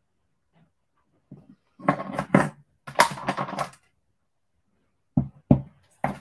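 A woman's voice speaking a few soft, unclear words in two short spells.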